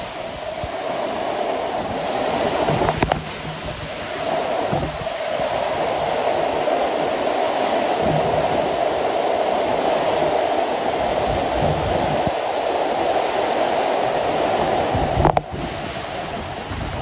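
Torrential rain pouring down in a strong wind, a loud, steady rush, with a couple of brief knocks about three seconds in and again near the end.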